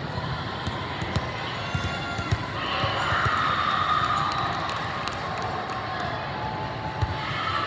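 Volleyball tournament hall din: a steady background of many voices with scattered sharp thumps of volleyballs being hit and bounced on the courts, and the voices swelling louder for a couple of seconds partway through.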